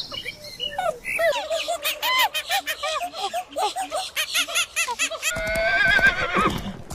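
A rapid string of short, high, arching animal calls, several a second, then a horse whinnying, a long wavering cry that falls away, starting about five seconds in.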